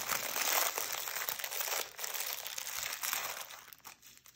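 Small plastic bags of diamond-painting drills crinkling as they are pulled out and handled by hand. The crinkling thins out near the end.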